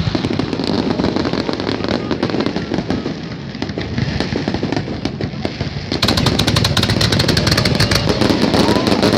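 Aerial fireworks bursting: a continuous rapid crackle of bangs and pops from the shells. About six seconds in, the crackling turns abruptly denser and sharper.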